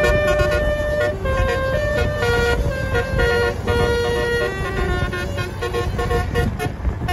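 Bus telolet horn playing a tune: a fast run of stepped musical horn notes, some short and some held, over a low rumble.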